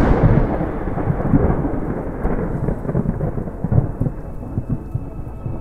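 A deep rumble like distant thunder, loudest at the start and slowly fading, with crackles running through it.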